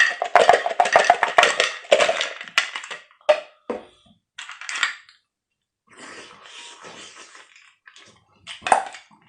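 Close-up eating noises: a dense run of clicking and crunching for about three seconds, then scattered clicks, a softer rustle, and one sharp knock near the end, like dishes, cutlery and shell being handled while chewing seafood.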